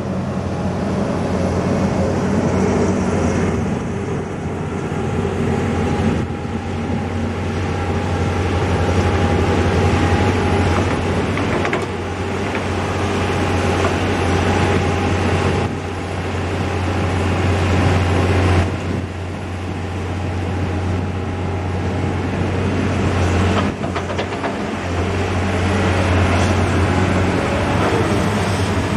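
Komatsu tracked excavator's diesel engine running steadily with a deep hum while it digs, its level swelling and dipping every few seconds as the hydraulic arm and bucket work.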